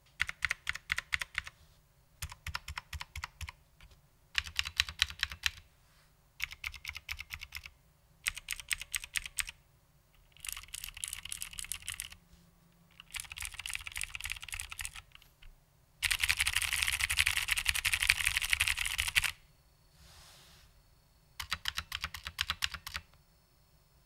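Vintage Cherry MX Blue clicky switches on an HMC C386SX mechanical keyboard with original Cherry double-shot keycaps, typed in short bursts of rapid clicking keystrokes with brief pauses between. A longer, faster run of typing comes about two-thirds of the way in.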